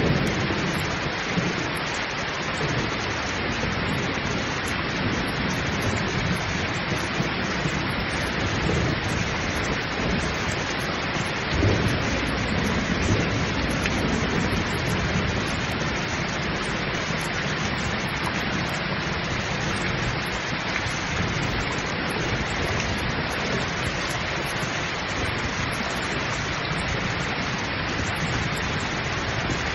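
Heavy rain pouring down steadily, with low rolling thunder rumbling underneath; the loudest rumble swells up about a dozen seconds in.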